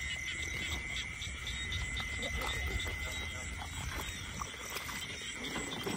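Frogs croaking in a chorus, with a steady high-pitched insect drone held underneath.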